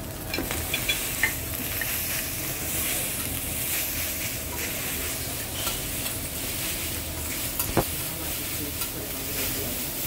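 Food sizzling on a hibachi teppanyaki griddle, a steady hiss, with scattered sharp metal clicks of the chef's spatula on the hot plate; the loudest click comes near the end.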